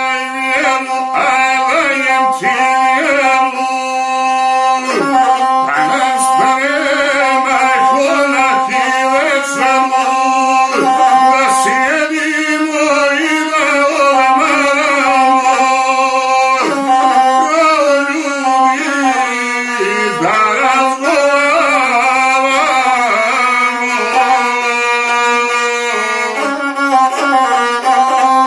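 A man singing a heroic epic song to his own gusle, the single-string bowed folk fiddle with a skin-covered soundbox, whose bowed tone runs on steadily under and along with the voice.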